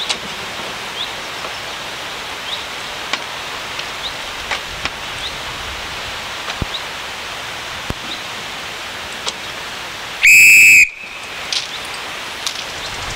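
A single short, shrill whistle blast about ten seconds in, lasting about half a second on one steady high pitch, over a steady outdoor hiss and faint bird chirps.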